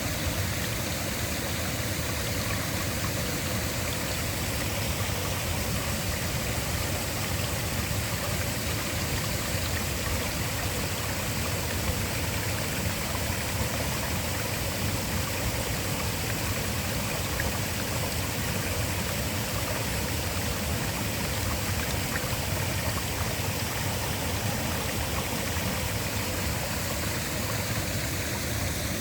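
Waterfall, water falling and rushing in a steady, unchanging rush of noise.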